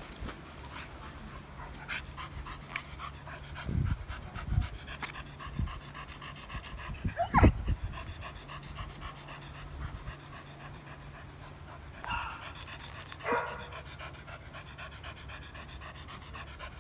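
A dog panting in quick, even breaths, with one short sound about halfway through that rises and falls in pitch and is the loudest moment.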